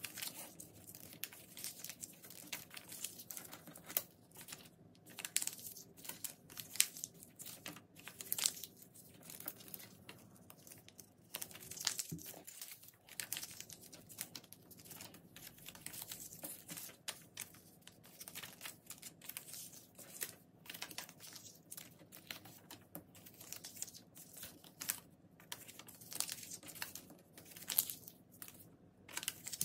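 Sheets of A4 paper being torn into small pieces and crumpled into balls by hand: a continuous run of irregular paper rips, rustles and crinkles, sped up to double speed.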